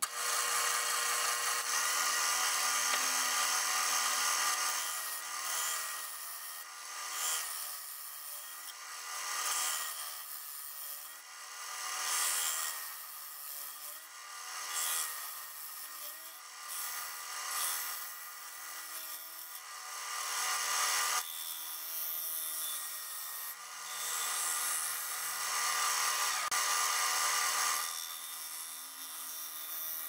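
A wood lathe runs with a steady motor whine while a gouge cuts into the face of a spinning disc of softwood 2x8 construction lumber. The cut is a hissing, shearing sound that swells and fades with each pass as the face is dished out.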